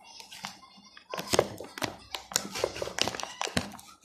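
Stiff plastic blister packaging crackling and clicking as hands work it open and cut it with scissors. A dense run of sharp clicks starts about a second in and dies away near the end.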